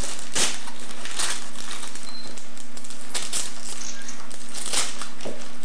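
Wrapping paper being torn and crinkled off a gift box, in several short rips.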